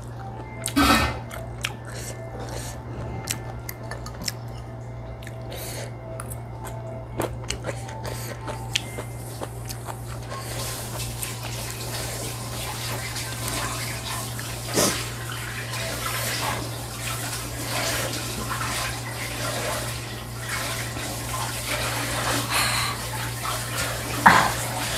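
Metal fork clicking and scraping against a glass food container while eating noodles, then from about ten seconds in a steady rushing noise like running water. Near the end a loud sniff into a tissue, her nose running from very hot chilli.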